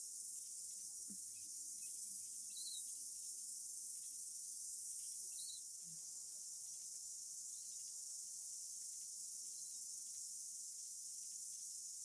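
Steady high-pitched insect chorus, typical of crickets, with a faint short chirp every two to three seconds.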